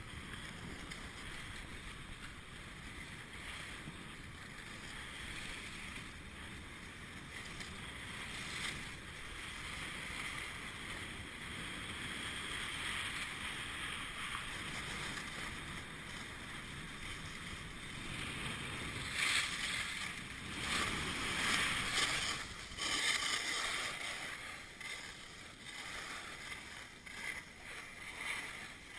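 Skis hissing and scraping over groomed snow at speed, with wind rushing over the camera's microphone. The scraping grows louder and harsher for a few seconds about two-thirds of the way through.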